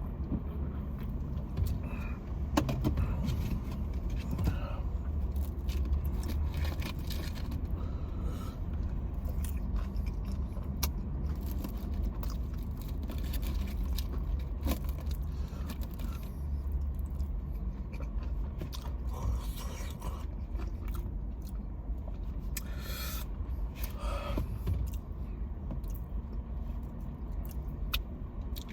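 Someone eating hot chicken: scattered short crunches, clicks and scraping of food and packaging over a steady low rumble.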